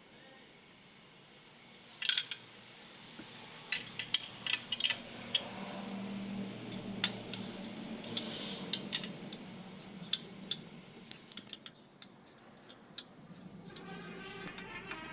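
Metal tools and parts clinking and tapping at irregular intervals, a scatter of sharp clicks over about ten seconds, with a low hum under them in the middle.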